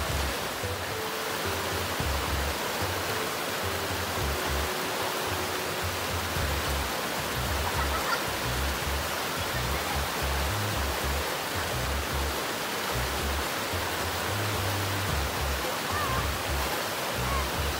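Background music with a low, stepping bass line over a steady rushing hiss of flowing water.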